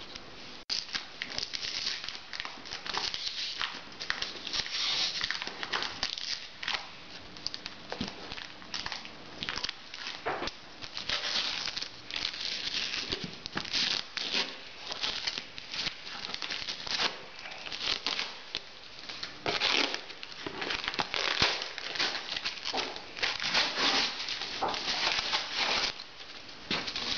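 Hand rubbing, scratching and picking at a taped cardboard shipping box, giving irregular scratchy rustling and crinkling with bits of tearing.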